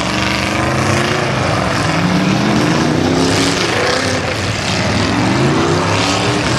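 Several demolition derby car engines revving hard, their pitch repeatedly rising and falling over a broad rush of exhaust noise.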